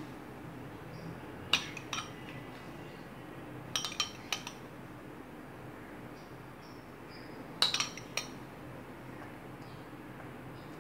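A metal spoon clinking lightly against glass as tomato purée is spooned onto food in a glass baking dish: a few single clinks and two short clusters of taps, about 4 and 8 seconds in.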